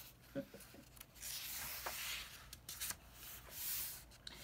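A picture book's paper page being turned and slid flat by hand: soft rustling and rubbing of paper, in two stretches, with a couple of faint taps.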